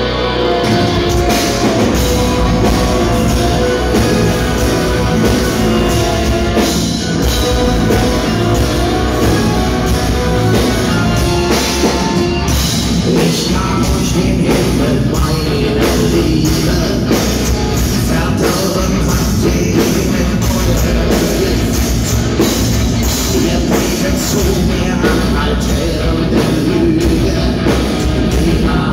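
German folk-metal band playing live: distorted electric guitars and a driving drum kit with singing over them, heard from within the crowd.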